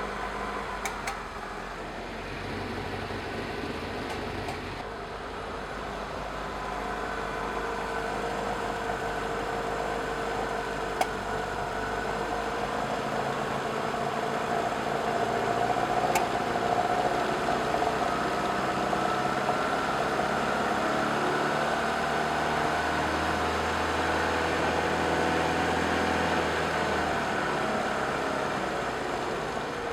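1968 BMW 2002's four-cylinder engine idling steadily on freshly installed twin Dellorto DHLA40 carburettors, with a few sharp pops standing out, about a second, eleven and sixteen seconds in. The idle drifts slightly in pitch and grows a little louder partway through.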